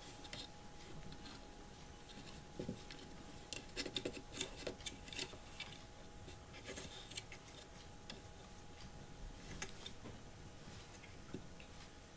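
Faint scattered scratching and clicking, busiest between about three and a half and five and a half seconds in.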